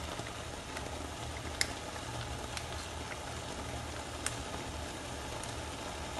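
Coconut cream boiling in a frying pan: a steady bubbling hiss over a low hum, with two sharp clicks about one and a half and four seconds in.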